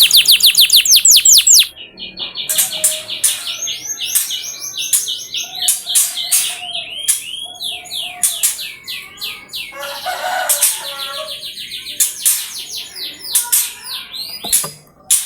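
Domestic canary singing: a very fast, even trill that breaks off about a second and a half in, followed by a varied run of high chirps, slurred whistles and short rolling trills.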